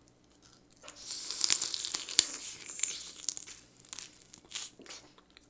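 Steamed swimming crab shell being bitten, cracked and pulled apart at the mouth: after a quiet second, a dense run of crackling and snapping for about two and a half seconds, then a few scattered cracks.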